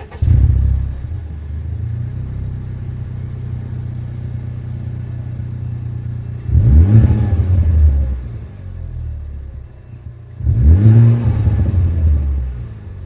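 Honda Civic Type R FK8's turbocharged 2.0-litre four-cylinder starting with a loud flare, settling to a steady idle, then blipped twice, about four seconds apart, the pitch climbing and falling back each time, heard through its cat-back exhaust.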